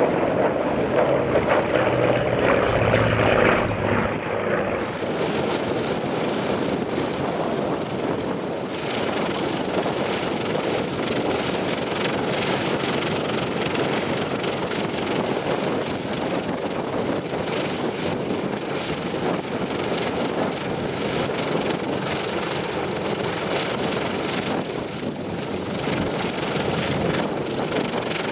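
Grumman F7F Tigercat's twin Pratt & Whitney R-2800 radial engines and propellers: the aircraft passes with a falling pitch over the first few seconds, then the sound changes abruptly about five seconds in to a dense, steady engine and propeller noise with wind on the microphone.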